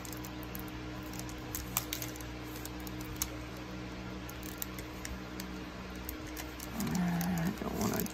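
Foil trading-card booster pack being handled and squeezed in the hands: faint crinkles and a few soft clicks over a steady low hum. A brief louder pitched sound comes about seven seconds in.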